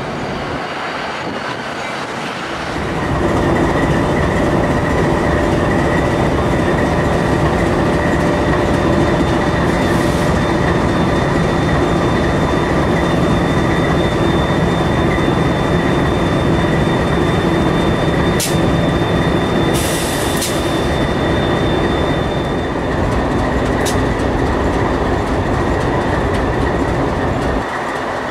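Diesel-electric freight locomotives, among them an EMD SD40-3 with its 16-cylinder 645 two-stroke diesel, running close by with a heavy steady rumble that gets louder about three seconds in. A thin high wheel squeal runs through the middle, and there are a couple of sharp clicks.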